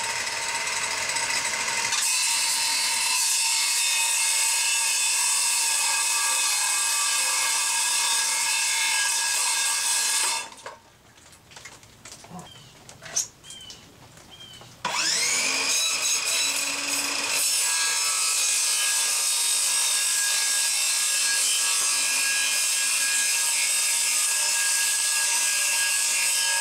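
Ridgid circular saw cutting a 1/4-inch Nidacore honeycomb panel skinned with thin fiberglass, running steadily with a high whine. It stops about ten seconds in, there is a pause of several seconds, and then it spins up again about fifteen seconds in and carries on cutting.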